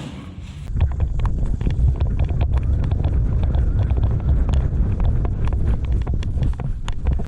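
Heavy rumble of wind and movement on a worn camera's microphone, with many short sharp clicks and knocks scattered throughout.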